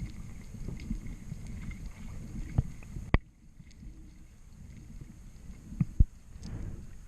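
Muffled underwater noise: a low rumble of moving water with scattered sharp clicks and knocks, the loudest about three seconds in and again about six seconds in.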